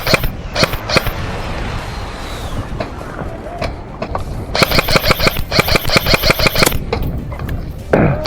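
Airsoft electric gun firing: a burst ends right at the start, two single shots follow within the first second, then a long full-auto burst of rapid, even clicks over the gearbox whine from about four and a half to seven seconds in.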